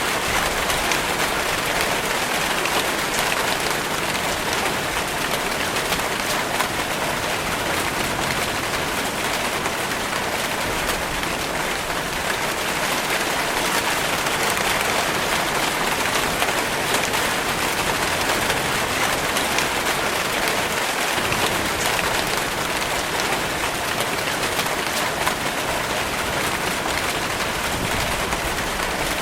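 Steady, even rain falling on a surface, a dense patter of drops with no let-up.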